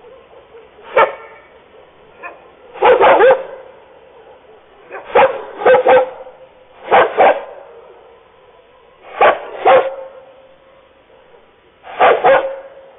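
A dog barking in short groups of one to three barks every couple of seconds, over a faint steady hum.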